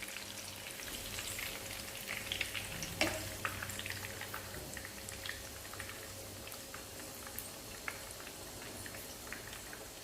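Chicken kola urundai (minced-chicken balls) frying in oil, a steady sizzle with scattered crackles; the balls are cooked through. A sharper tick sounds about three seconds in.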